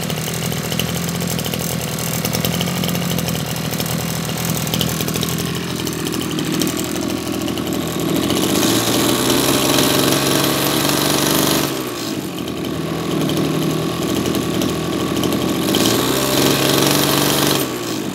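Maruyama BigM KC26 26cc two-stroke brush cutter engine running with the cutting head spinning. It idles, then is revved up twice on the throttle, around the middle and near the end, dropping sharply back to idle each time. It answers the throttle quickly, "very responsive".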